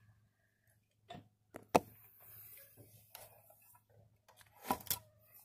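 Light knocks, clicks and faint rustling as a cardboard box is handled close to the microphone. The sharpest knock comes a little under two seconds in, with a quick pair near the end.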